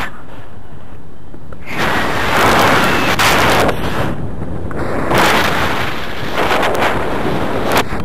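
Wind buffeting the camera microphone in flight under a tandem paraglider. The rush of air swells and drops in loud gusts: quieter for about the first second and a half, then surging in waves every second or so.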